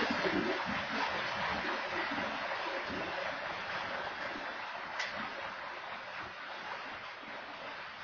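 Freight train of covered hopper cars rolling past, a steady rushing clatter of steel wheels on rail that gradually fades. A single sharp click about five seconds in.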